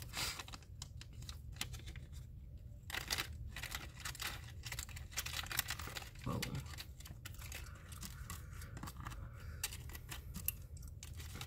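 Clear plastic cellophane bag crinkling and rustling as it is handled, with irregular light clicks of small wooden embellishment pieces being gathered up.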